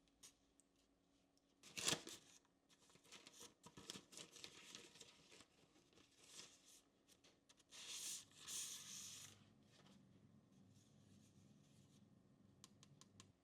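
Hands handling keyboard parts and packaging: a sharp tap about two seconds in, then scattered small clicks and rustling, with a louder tearing or crinkling sound around eight to nine seconds in.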